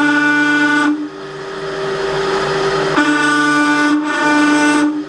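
Large twist drill in a metal lathe's tailstock squealing as it bites into the flat face of a spinning aluminium collet: a loud high-pitched tone for about a second, then rougher cutting noise, then the squeal again from about three seconds in until nearly the end. The squeal comes from the drill's wide first contact with the flat face, made worse by a bit the machinist thinks might be getting blunt.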